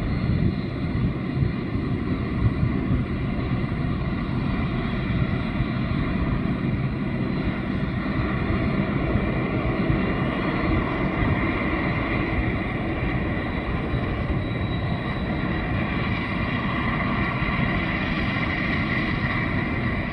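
Aircraft turbine engines running: an Embraer E190 regional jet on its takeoff roll and climb-out, together with a Dash 8 Q300 turboprop engine starting up. A steady rush with a high whine that grows stronger in the second half.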